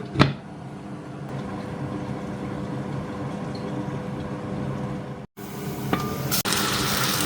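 A pot of chicken curry simmering on the stove: a steady hiss under a low hum, with a short click near the start. The sound breaks off sharply about five seconds in, then returns louder and hissier with a couple of clicks.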